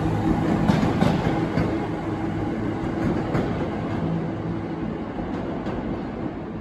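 Train of red carriages running past along the far track and away, with a steady low hum, a few wheel clicks over rail joints, and the sound slowly fading as it recedes. The hum drops out about two-thirds of the way through.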